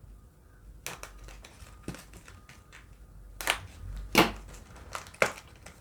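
Packaging of a trading-card premium pack set being handled and opened: a handful of sharp clicks and taps at irregular intervals, the loudest about three and a half and four seconds in.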